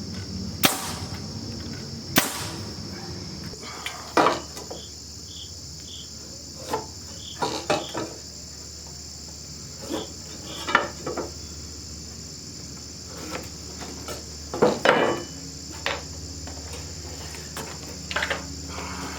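Work on a lumber frame: two sharp, loud knocks near the start, then scattered lighter knocks and clatter of boards being handled. Under it all runs a steady high-pitched drone of insects.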